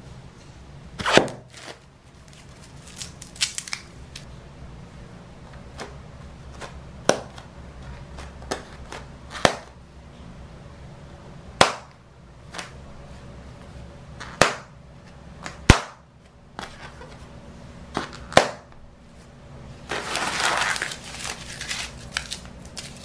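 Inflated plastic bond balloons (bubble-plastic toy balloons) popping one after another: about a dozen sharp, loud pops a second or two apart. Near the end comes a couple of seconds of dense crackling.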